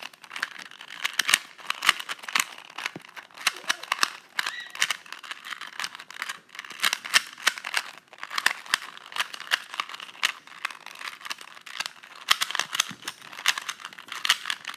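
ShengShou 2x2x2 speed cube turned rapidly by hand: a dense, irregular run of plastic clicks and clacks as the layers snap round, coming in quick flurries with brief lulls.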